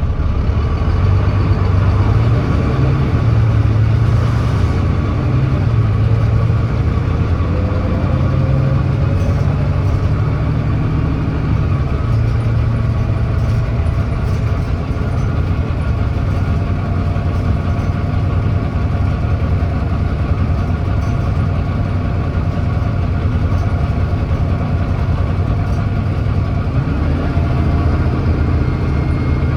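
Volvo B9TL double-decker bus's Volvo D9B 9.3-litre diesel engine and ZF Ecolife automatic gearbox running steadily under load while climbing. The bus has an exhaust leak. Near the end the gearbox kicks down from fourth to third and back to fourth.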